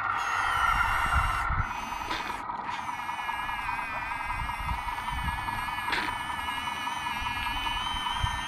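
Small electric motors of an RC loader and its mixing bucket running with a steady whine as the bucket's paddle turns wet mortar. It is louder and buzzier for the first second and a half, then settles to a steadier whine with faint low thuds.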